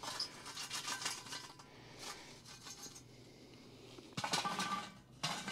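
Hot charcoal briquettes sliding and clattering out of a metal chimney starter onto a cast iron camp oven lid, in a rattling stretch at the start and a second shorter pour about four seconds in.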